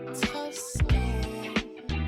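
Background funk/R&B music with a steady beat and bass line.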